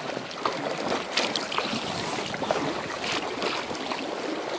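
Kayak paddle blades dipping into river water: irregular small splashes and drips over a steady wash of water.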